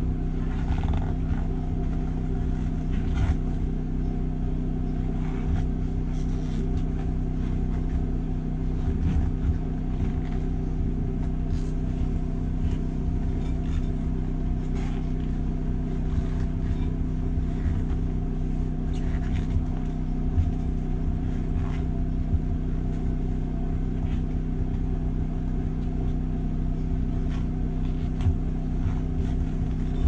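A steady machine hum with a constant low drone. Faint scattered taps and rubbing from the inner tube being pushed into a knobby tire around a steel rim.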